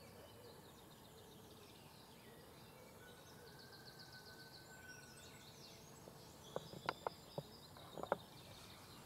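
Faint woodland ambience with distant birdsong, and a few brief clicks in the latter part.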